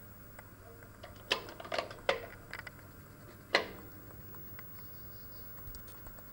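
About four sharp clicks on a Commodore PET's keyboard as the test program is typed in and run, the last one, about three and a half seconds in, the loudest, over a faint steady hum.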